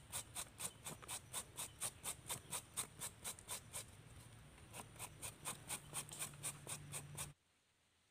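Squash being grated on a handheld metal grater: rapid rasping strokes, about four a second, softer for a moment midway and stopping abruptly near the end.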